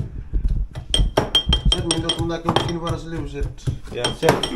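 Metal kitchen utensil clinking against ceramic bowls on a counter: a quick, uneven run of sharp clinks, each with a short ringing note.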